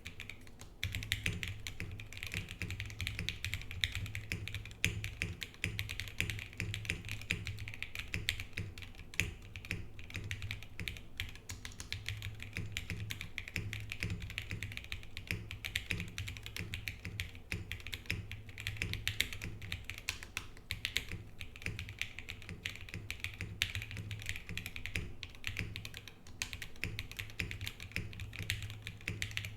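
Continuous typing on a Geonworks Frog TKL mechanical keyboard with SP-Star Meteor White switches, PBT keycaps and an aluminium plate on rubber tadpole mounts: a rapid, uneven patter of keystrokes.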